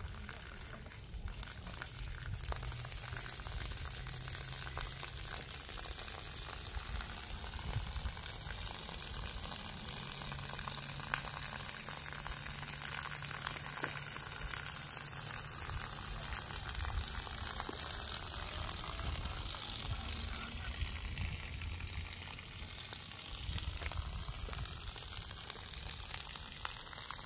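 Steady hiss of rainwater running off a flat roof and pouring from a drain spout.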